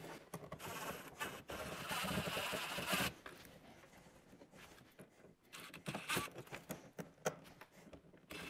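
Cordless drill running for about three seconds as it backs out a front hood screw on a plastic snowmobile hood. It is followed by a few light clicks and knocks of tool handling.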